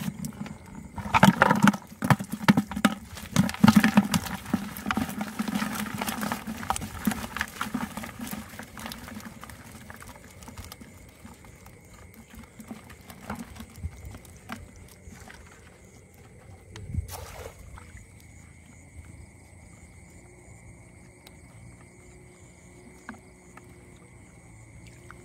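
Small live fish tipped out of a slatted tube fish trap into a plastic bucket: a dense wet patter of flapping and splashing that thins after several seconds to scattered flicks and taps.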